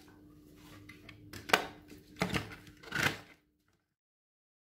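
Sharp plastic clunks and clicks, three in all, as a blender's plastic jar and lid are handled and fitted onto the motor base, over a faint steady hum; the sound cuts out abruptly a little over three seconds in.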